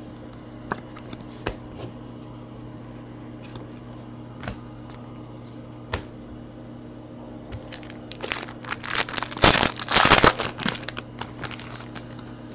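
Foil trading-card pack wrapper being torn open and crinkled, a dense crackling run through the second half that is loudest about two-thirds through. Before it, a few light clicks as cards are handled.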